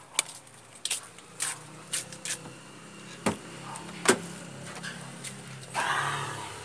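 A car door being opened amid footsteps and handling: a string of sharp clicks and knocks, then a brief rustle near the end, over a low steady hum.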